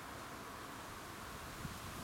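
Faint steady outdoor wind noise with rustling leaves and a soft hiss.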